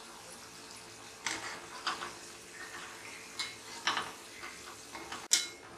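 Shankarpali dough pieces sizzling steadily as they deep-fry in hot oil in a kadhai, with a wire skimmer clinking against the pan about six times as they are stirred apart. The loudest clink comes near the end.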